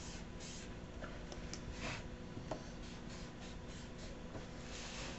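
Paint marker nib scratching across paper in a series of short, faint strokes as a tag is written.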